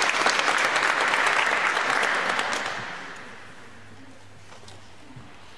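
Audience applauding, a dense patter of many hands clapping, which dies away about three seconds in and leaves the hall quiet.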